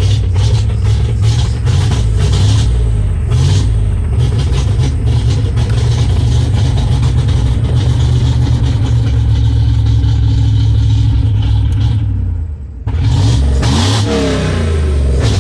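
1998 Dodge Ram 1500's 5.9-litre V8 running after a new ignition, a steady low rumble; about twelve seconds in it dips briefly, then rises in pitch as it revs up.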